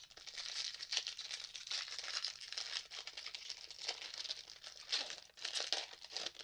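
Foil wrapper of a Pokémon Fusion Strike booster pack crinkling and tearing as it is handled and ripped open, an irregular rustle with a few sharper crackles.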